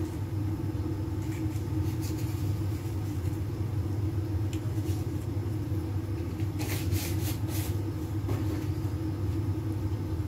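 Steady low rumble of a gas stove burner heating a pot of water, with a few brief rustles and clicks about seven seconds in.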